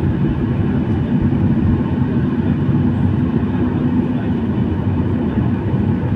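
Boeing 737 cabin noise while taxiing onto the runway: a steady low rumble of the running jet engines and the rolling airliner, with a faint steady hum under it.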